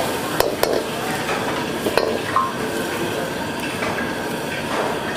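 Steel ladle stirring and scraping in a steel wok while chopped garlic sizzles in hot oil for a garlic tempering (tarka). The ladle knocks sharply against the metal three times in the first two seconds.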